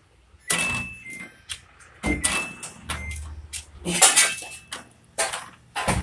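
Samsung top-load washing machine, lying on its side and set to spin, making a series of loud clunks and rattles from its drive and shift actuator, with a low hum in between. The machine keeps cutting the spin short because its lid-open protection is tripped.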